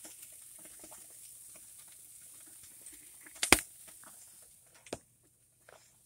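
Seasoned salt shaken in a light patter over burger patties on a gas grill, with the patties faintly sizzling. A little past halfway comes one sharp knock, and a softer knock about a second and a half later.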